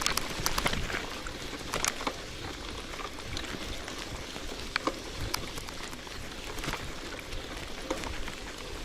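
An old KhVZ bicycle ridden over grass and dirt: tyres rolling, with scattered crunches and clicks from the chain and transmission. The rider puts the transmission crunching down to wet grass caught in it and a strongly misaligned chain.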